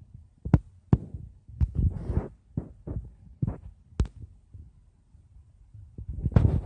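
Handling noise on a phone's microphone: irregular sharp knocks and low rubbing thumps as the phone is moved and fumbled with. It goes quieter for a second or two, then picks up again near the end.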